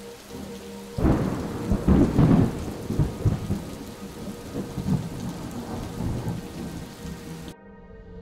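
Heavy rain with rumbles of thunder, starting suddenly about a second in and cutting off abruptly near the end.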